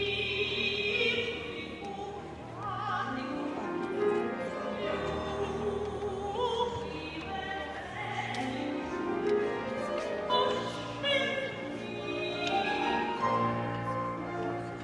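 Operatic singing: a voice with a strong vibrato sings phrases that sweep up and down in pitch, over a low instrumental accompaniment.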